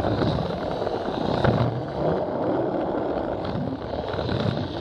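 Plarail battery toy train running on plastic track: a steady small-motor whir with light clicking over the track joints, against a background of crowd chatter.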